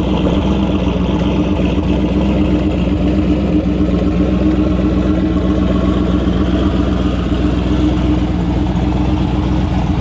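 Turbocharged 4.8 L LS V8 in a Foxbody Mustang idling loud and steady, its pitch holding level with no revving.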